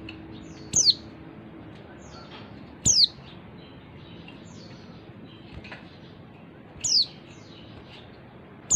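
Female white-eye (pleci) giving short, high call notes that slide sharply downward, about one every two seconds, with fainter falling notes between them over a steady background hiss.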